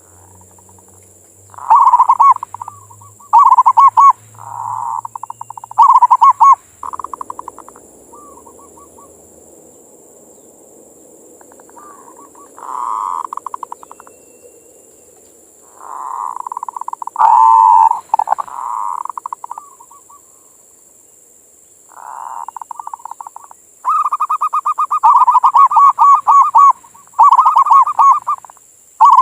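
Zebra dove (perkutut) cooing: repeated song phrases of rapid, trilling coos, each lasting about one to three seconds, with pauses between them and a long continuous run near the end.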